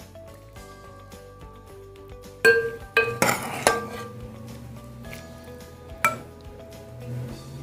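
Metal ladle clinking against a serving bowl and cooking pot while stew is dished out: a cluster of sharp clinks between about two and a half and four seconds in, and one more about six seconds in, over background music.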